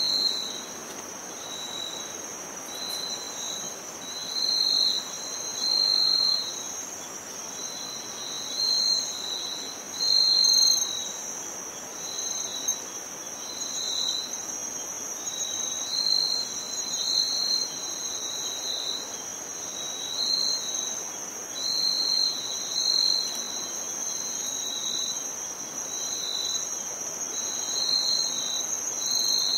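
Insects chirping in chorus, cricket-like: a steady high-pitched trill runs throughout, with a second, lower chirping song coming and going over it in short, uneven phrases.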